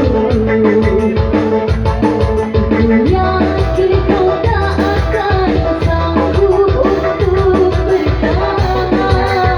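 Dangdut music: a band playing with a steady beat, a bass line and a sustained melody over it.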